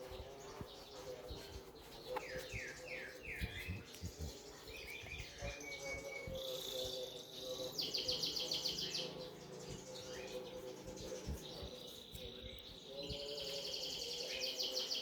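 Birds chirping and singing: a run of quick downward-sweeping notes a couple of seconds in, then fast, high trills around the middle and again near the end.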